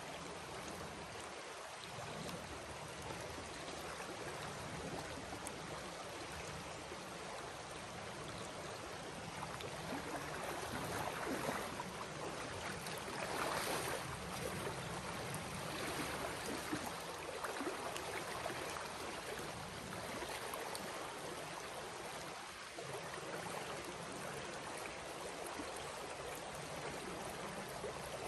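Steady rushing of a creek flowing over shallow riffles, with louder splashing of water for several seconds around the middle.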